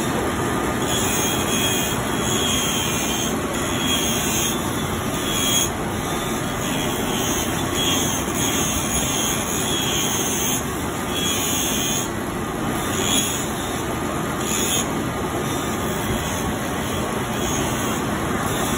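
Leather-working machine with a spinning wheel running steadily while the stitched leather edge of a boot shaft is fed against it, a higher scraping sound coming and going as the leather meets the wheel about once a second.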